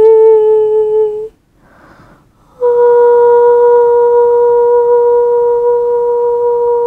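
Solo flute playing long held notes. One note ends about a second in, a breath is drawn, and a slightly higher note is held steady, with some breathiness, until near the end.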